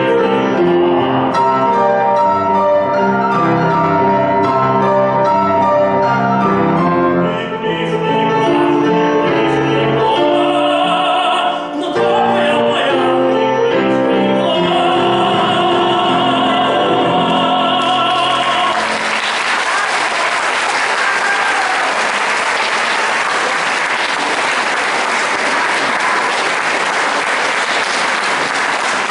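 A female opera singer with Seiler grand piano accompaniment sings an aria. It ends on a long held note, and about two-thirds of the way through the music stops and steady applause takes over.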